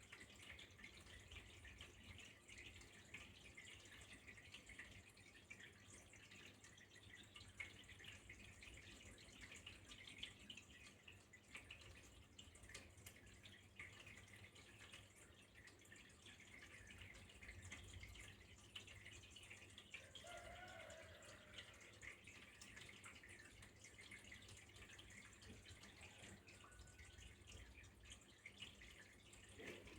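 Faint, steady trickling and dripping of water, with a dense patter of small drops.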